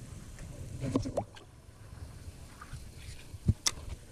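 Fishing rod and spinning reel handled while wading in shallow sea water: a few soft knocks about a second in and two sharp clicks near the end, over low rustling of clothing against the body-worn camera.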